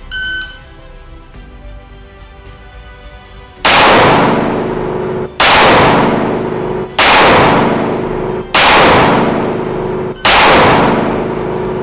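A shot-timer beep, then about three and a half seconds later five pistol shots fired one-handed, evenly paced about a second and a half apart, each with a long echoing tail.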